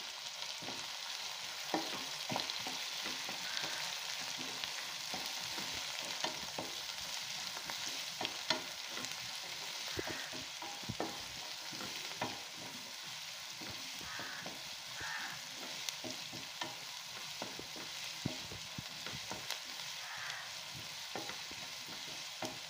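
Chopped onions and garlic sizzling in hot oil in a nonstick pan as they sauté, with a steady hiss. A spatula stirring them adds frequent scraping and tapping clicks.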